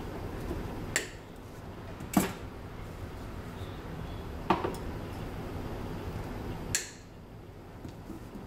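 Lineman's pliers snipping insulated solid copper wires to length: four sharp snips, one to two seconds apart.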